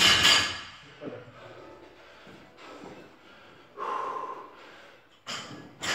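Hard, heavy breathing of a lifter recovering between barbell snatch reps: a forceful exhale at the start, a loud gasp about four seconds in, and two quick breaths near the end.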